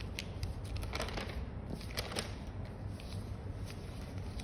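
Scattered small clicks and crackles, irregular and closely spaced, over a steady low hum.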